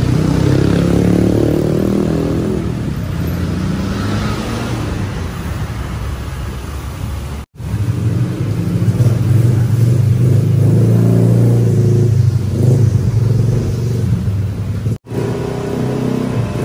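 A motor running with a strong low hum, broken twice by a brief dropout, about seven and a half and fifteen seconds in.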